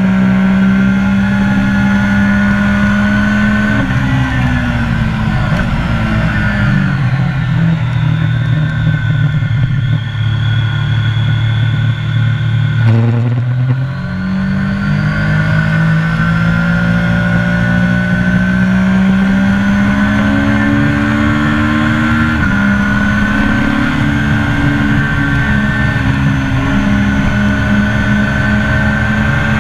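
Triumph sport motorcycle engine heard from onboard at high revs, with wind rush. Its note drops in steps through the first half, as in braking and downshifting for a corner, then climbs steadily under acceleration with a gear change about two-thirds of the way through.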